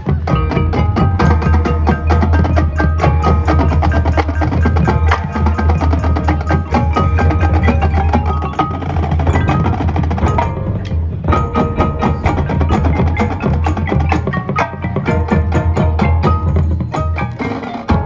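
High school marching band playing its field show, with dense percussion: the front ensemble's mallet keyboards and drums stand out. There is a brief break in the sound about ten and a half seconds in.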